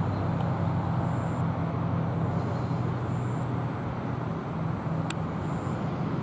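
Steady low hum of a motor vehicle engine, easing off after about four seconds, over outdoor background noise, with a single sharp click about five seconds in.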